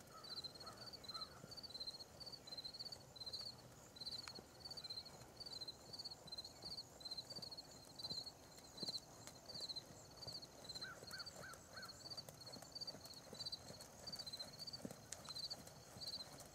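Faint hoofbeats of a horse moving over a sand arena, under a steady run of high, paired chirps that repeat about twice a second throughout, with a few short lower chirps near the start and again about two-thirds of the way in.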